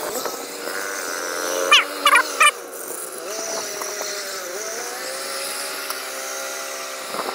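Engine of a small tracked rice-sack carrier running under load, its pitch dipping and recovering as it climbs out of the field onto the bank. Three short, loud, high-pitched calls cut in about two seconds in.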